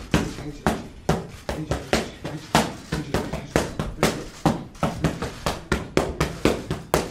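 Boxing gloves smacking focus mitts in fast combinations: sharp slaps about three a second, often landing in quick pairs and triples.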